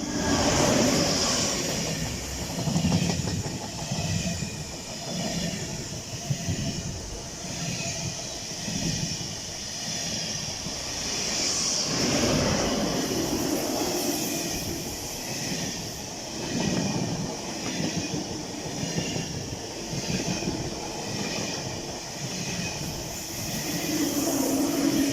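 Train passing close by, its wheels clacking rhythmically over the rail joints over a steady rushing hiss of rolling stock.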